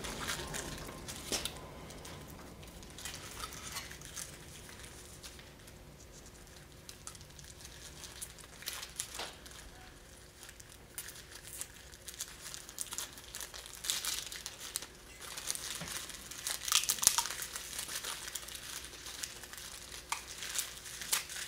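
Thin crinkly film being peeled off a freshly demolded carbon fiber landing gear part and crumpled in the hands: irregular crinkling and tearing, quiet early on and busier past the middle.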